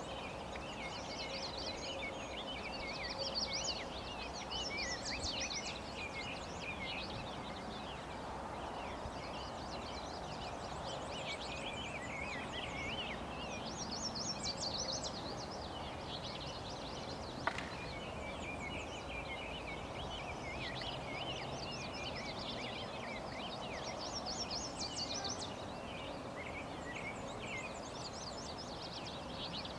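Several songbirds singing throughout, with many quick overlapping chirps and trills, over a steady background hiss. One sharp click a little past the middle.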